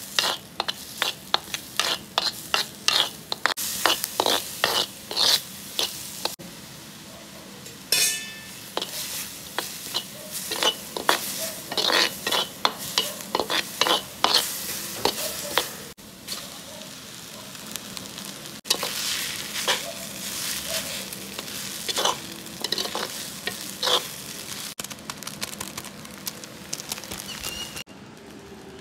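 A steel spatula scraping and stirring chopped onions, tomatoes and chillies frying in an earthen pan over a wood fire: a steady sizzle under runs of quick, sharp scrapes against the pan. The scraping stops and it goes quieter about a second before the end.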